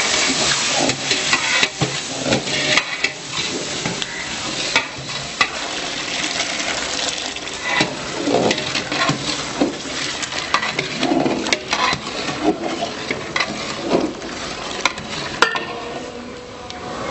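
Long-handled metal ladle stirring thick semolina cooking in hot water in a large metal pot, scraping and knocking against the pot amid a steady bubbling hiss. The sound grows quieter near the end.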